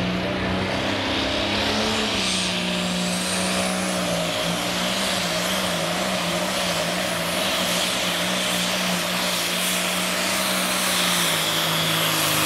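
Turbocharged diesel engine of a light pro pulling tractor working hard under load as it drags the weight-transfer sled, its note holding steady. A high turbo whine rises over the first few seconds.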